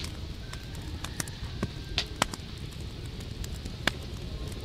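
Open wood fire burning hard, crackling with irregular sharp pops over a low steady rumble; the loudest pops come about two seconds in and again near four seconds.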